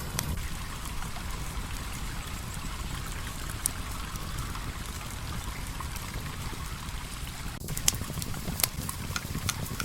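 Steady flowing-water noise of a stream, with sharp campfire crackles scattered through it, a few more of them near the end.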